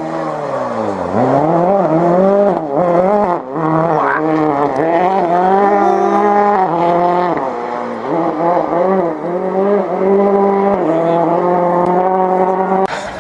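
Rally car engine at full effort through the gears. The pitch falls at the start, then climbs in a run of rising sweeps, each cut short by a gear change, and holds steadier near the end.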